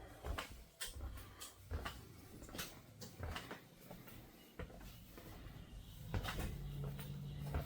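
Faint scattered clicks and knocks, joined by a low steady hum about six seconds in.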